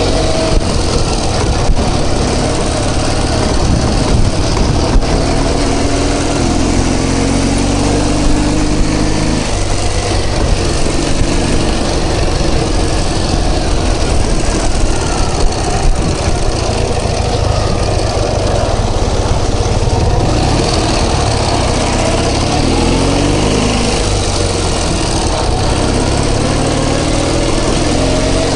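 Motorcycle engine running under way, with heavy wind noise on the microphone. The engine note climbs as it pulls, drops at a gear change about ten seconds in, and climbs again later.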